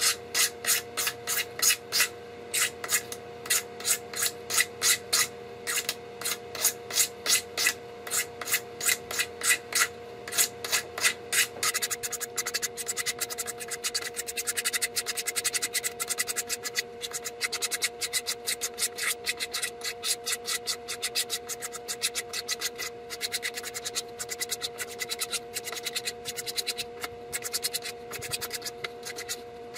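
A pocket-knife blade, held sideways, scraped over and over along the hand-sawn edge of a polycarbonate tube to shave off the rough burr. The scraping runs at about three strokes a second, then turns to quicker, shorter strokes about twelve seconds in.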